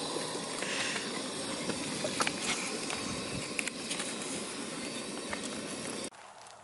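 Breakfast cooking on a stove: a steady hiss with scattered small crackles and clicks. It cuts off abruptly near the end.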